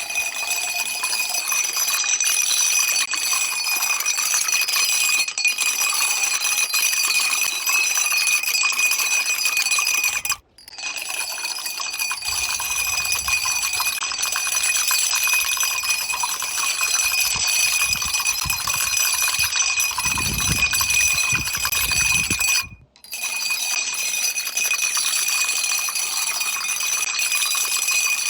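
Long chains of dominoes toppling: a continuous, dense clatter of small clicks with a bright ringing edge. It breaks off for a moment twice, about ten seconds in and again near twenty-three seconds, and between those breaks some lower knocks come through.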